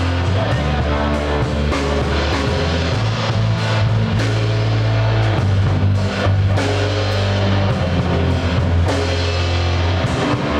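A live band playing an instrumental passage with electric guitar, bass guitar and drum kit, the bass holding low notes that change every second or two under steady drum and cymbal hits.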